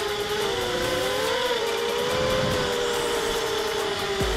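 Racing quadcopter's brushless motors and propellers whining, several close pitches wavering up and down and crossing as the throttle changes.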